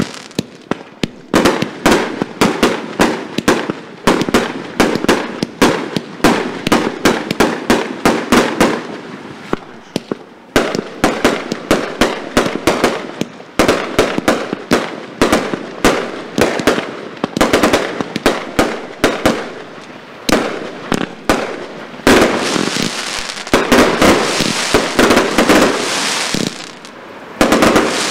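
Geisha 1666 Airforce Display Box, a double compound firework cake, firing shot after shot in rapid succession. Each shot pops as it leaves its tube and cracks when it bursts. Between the shots come spells of dense crackling, the longest a few seconds before the end.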